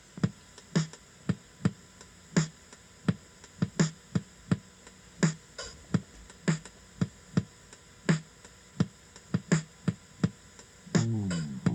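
Song intro: a drum-machine beat plays alone, with kick and snare hits. Near the end a bass guitar comes in with a downward slide.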